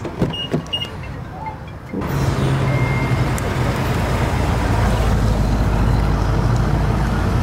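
A few light clicks and taps, then from about two seconds in a car engine's low, steady rumble as a sports car runs slowly across the lot.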